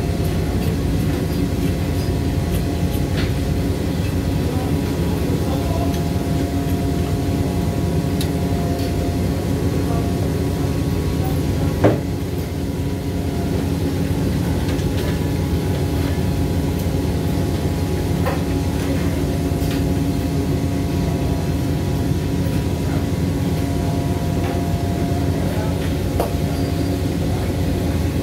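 Steady low drone of a fishing boat's engine running, with a few steady tones in it. Scattered light knocks from a blade cutting into a tuna on the deck, with one sharper knock about twelve seconds in.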